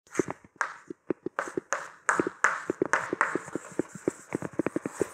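Chalk writing on a blackboard: quick taps of the chalk against the board, several a second, with short scratchy strokes between them.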